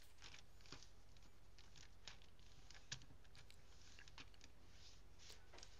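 Faint rustles and light ticks of origami paper being lifted and creased by hand and with a small folding tool, over a low steady hum.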